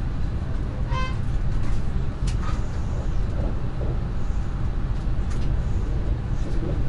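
Lastochka ES1P electric train running, heard from inside the passenger car: a steady low rumble with a few faint clicks and a brief high-pitched tone about a second in.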